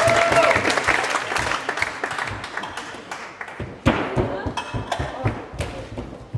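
Audience applauding and cheering, dense at first and thinning to scattered claps. A held music note dies away in the first half second, and there is a single thump about four seconds in.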